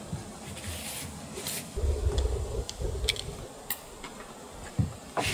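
Small clicks and scrapes of a screwdriver prying at the plastic nozzle lock on a spray-paint can, which is stuck and will not spray. Wind buffets the microphone from about two seconds in.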